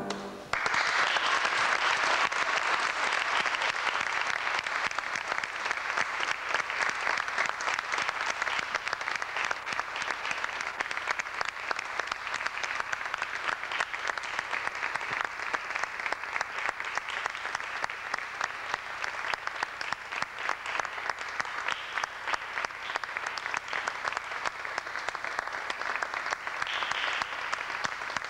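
Audience applause breaks out about half a second in, just as the last bowed note stops, and goes on as dense, steady clapping that eases only slightly.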